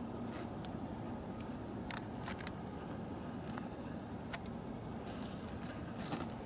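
Steady low wind rumble on the microphone, with scattered light clicks from the handheld camera as it pans about the sky.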